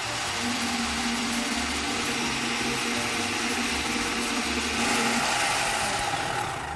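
Countertop electric blender running steadily, blending a thin tahini, lemon and mint sauce. The motor's sound shifts and grows a little louder about five seconds in, then winds down at the very end.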